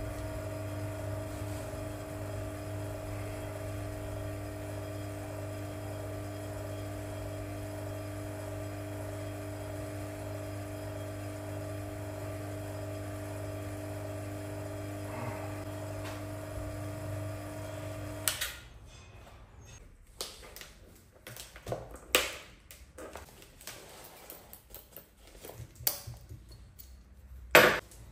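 Electric rotary-vane vacuum pump running with a steady hum, drawing vacuum on a resin-infusion bag over a carbon fibre layup. It stops suddenly after about 18 seconds, and scattered clicks and crinkles of plastic tubing and bagging follow, with one sharp click near the end.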